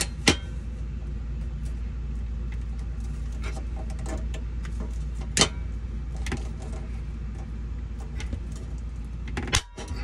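Hand pop-rivet tool being squeezed repeatedly to set rivets in a cord reel's gear cover: light clicks of the handles and jaws, with sharp snaps of rivet mandrels breaking off, one about a third of a second in and one about five and a half seconds in. Another sharp click comes near the end. A steady low hum runs underneath.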